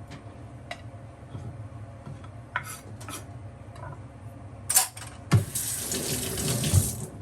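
Scattered small clicks and knocks of kitchen work, then a kitchen tap runs water for about two seconds near the end.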